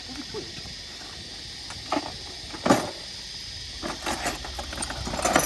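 Scattered knocks and clatter of gear being rummaged through in search of a tool, over a steady high hiss; the sharpest knock comes about halfway through, with a run of smaller rattles near the end.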